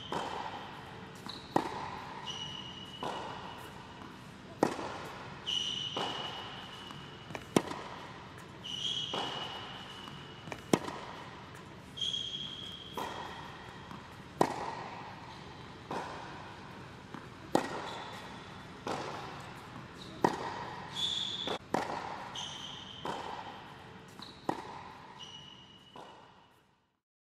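Tennis rally on an indoor hard court: sharp racquet-on-ball hits and ball bounces every one to two seconds, echoing in the enclosed hall, with short high shoe squeaks on the court surface between them. The sound fades out near the end.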